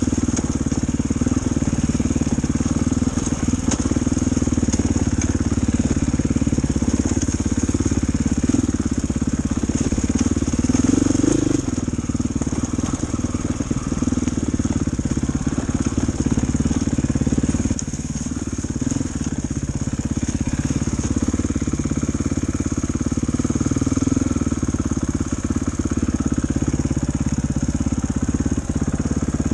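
Dirt bike engine running under way on a rough trail, the engine note rising and falling with the throttle.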